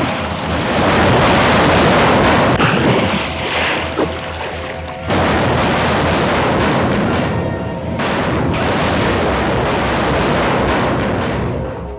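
Dramatic background music mixed with heavy booming noise; it grows suddenly louder about five seconds in.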